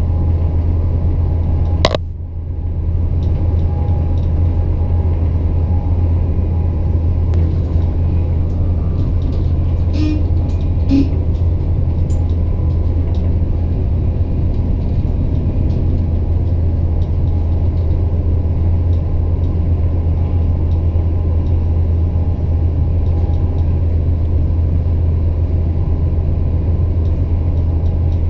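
Steady low rumble of an ICE 1 high-speed train running at speed, heard from inside a passenger car. A single sharp click about two seconds in, followed by a brief dip in the noise, and a few faint ticks later.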